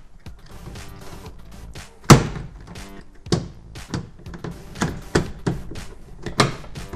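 Hard plastic clicks and knocks as an interior door handle is pushed and snapped into a van's door trim panel. The sharpest knock comes about two seconds in, with several lighter ones after it.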